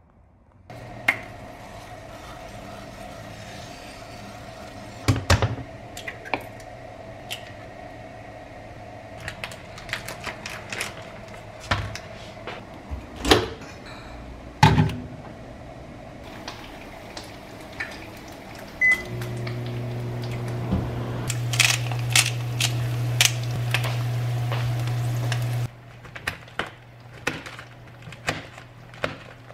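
GE Profile built-in microwave running with a steady hum that grows louder about two-thirds of the way through, amid clicks and knocks of dishes and kitchen handling. Near the end the hum cuts off, and a knife taps lightly while slicing mushrooms.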